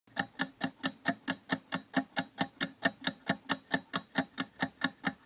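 Clock-ticking sound effect for a quiz countdown timer: quick, even ticks, about four to five a second.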